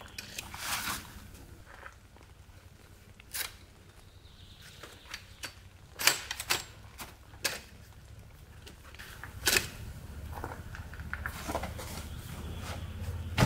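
Folding camp chair being set up: scattered clicks, knocks and rustles from its metal frame and fabric, the sharpest about halfway through and again a few seconds later.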